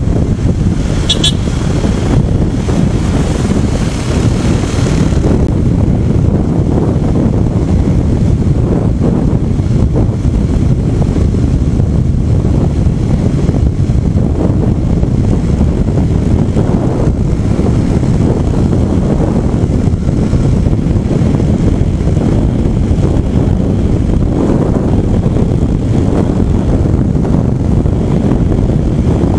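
Wind buffeting an action camera's microphone on a moving Rusi SSV200 motorcycle, a steady loud rush with the engine and tyre noise underneath. A short high-pitched chirp about a second in.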